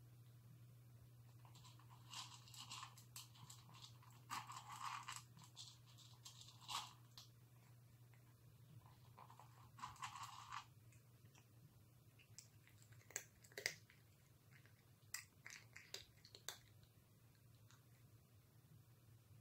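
Cat crunching dry kibble: bursts of chewing through the first half, then a few single sharp crunches.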